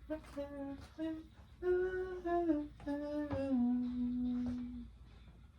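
A person humming a short melody of several stepped notes, ending on one longer held low note.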